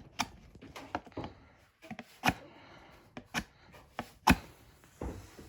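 A string of irregular sharp knocks and clicks, with the loudest knock about four seconds in.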